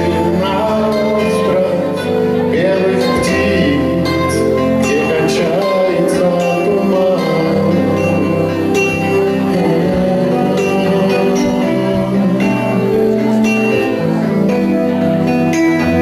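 A man singing a slow lyrical song into a hand microphone over amplified instrumental accompaniment, with held chords under the voice.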